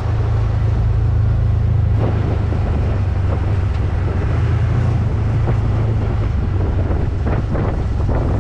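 Side-by-side UTV engine running steadily while driving over sandy dirt, with wind noise on the microphone.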